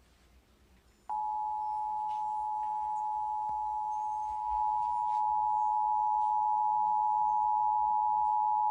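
Emergency Alert System two-tone attention signal: two steady tones (853 and 960 Hz) sounding together at an even level. It starts abruptly about a second in and runs for about eight seconds, announcing an emergency alert message.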